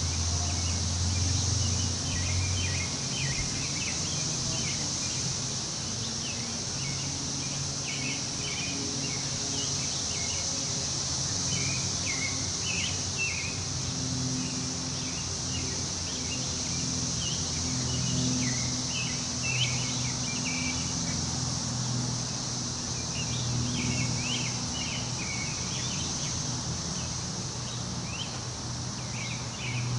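Woodland ambience: wind moving through the trees, with a steady high insect drone and many short bird chirps throughout, over a low hum.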